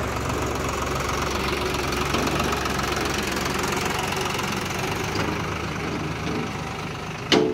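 Eicher 650 tractor's diesel engine running as it hauls a loaded trolley over rough dirt, with one sharp bang near the end.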